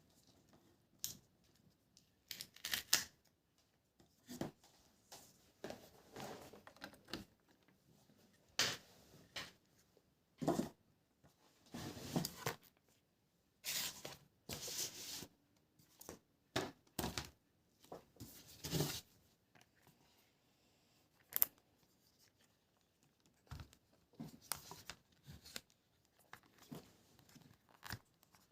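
Irregular rustling and tearing of packaging being opened and handled, in short rips of up to about a second, with a few sharp clicks and knocks.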